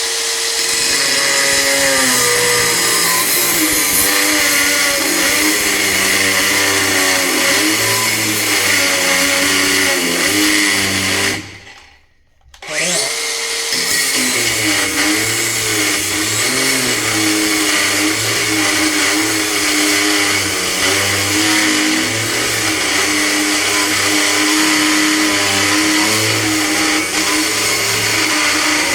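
6-inch DeWalt FlexVolt cordless angle grinder cutting through 3/4-inch thick steel plate: loud grinding with a motor whine that wavers in pitch as the load changes. About twelve seconds in the grinder stops for about a second, then starts cutting again.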